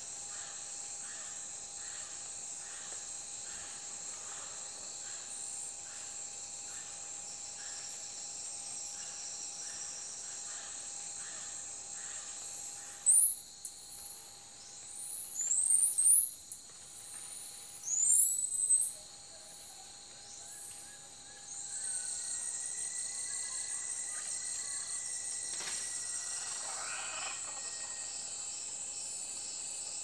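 Insects shrilling in a steady chorus with a regular pulsing beat, broken in the middle by a few loud, high, sweeping bird chirps; a louder, higher insect trill comes in about two-thirds of the way through.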